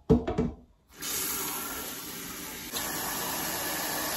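A few short knocks as a pot is set down in a stainless steel sink, then from about a second in a kitchen tap runs through its spray head into the pot of potatoes: a steady hiss of water filling the pot.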